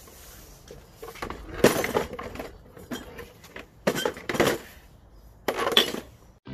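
Clinking and clattering in three short bursts from the round streetlight lamp head being handled and carried.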